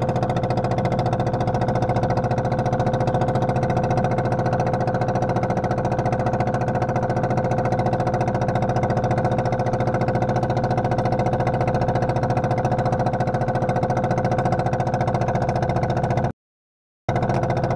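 An engine running steadily at an even idle-like speed, its drone unchanging in pitch. The sound cuts out completely for under a second near the end, then resumes.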